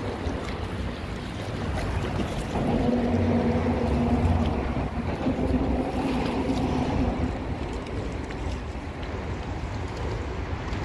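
Wind rumbling on the microphone beside a fast-flowing river, with a steady hum from a few seconds in until about two-thirds of the way through.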